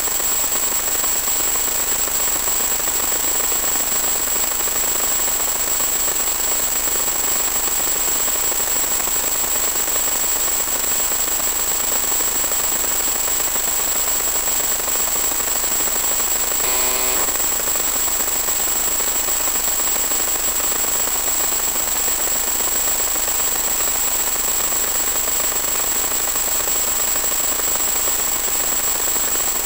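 Steady hiss of static with a constant high-pitched whine, from the audio channel of a 1.2 GHz analog FPV video link; a brief faint crackle comes a little past halfway.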